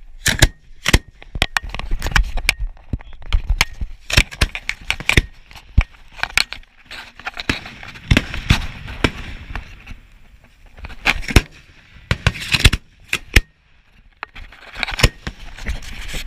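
Aerial fireworks fired close by: shells launching from mortar tubes and bursting overhead, an irregular run of sharp bangs, some coming in quick clusters, with a short lull near the end.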